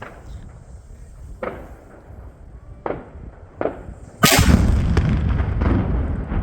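Fireworks going off: four separate bangs about a second or so apart, then a much louder explosion about four seconds in, followed by a dense run of smaller pops and rumble.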